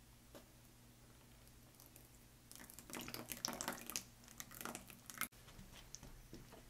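Thick plain yogurt poured into a bowl of flour, with wet plopping and spattering for about two and a half seconds. It cuts off suddenly, and softer scraping and squishing follows as a silicone spatula begins stirring the yogurt into the flour.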